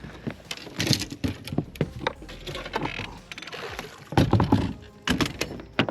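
Irregular knocks, clatter and thumps of gear being handled in an aluminium-and-fibreglass fishing boat, with a brief rushing hiss midway and heavier thumps near the end.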